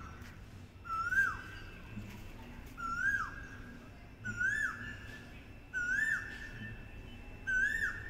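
A bird calling over and over, five whistled calls about a second and a half apart, each a quick upward flick and dip that runs into a short held note.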